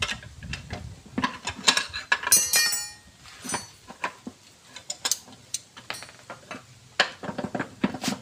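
Screwdrivers and pry bars clinking, knocking and scraping against a Toyota Dyna gearbox case as the housing is levered apart, in irregular metallic clicks. A ringing metal clink comes about two seconds in.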